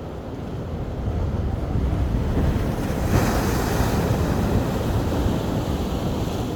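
Ocean surf on a beach: the wash of the waves builds over the first few seconds, a wave breaks with a bright hiss about three seconds in, then it slowly eases. A low rumble of wind on the microphone runs underneath.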